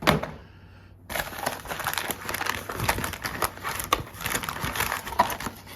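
A sharp click, then from about a second in a steady run of crinkling and rustling with many small clicks, like packaging being handled.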